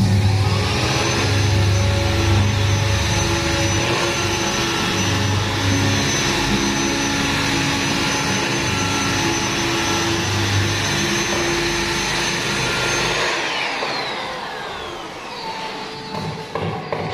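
Electric long-reach drywall sander running while sanding a plaster ceiling: a steady motor hum with a high whine. About 13 seconds in the whine falls in pitch and the sound gets quieter as the motor winds down.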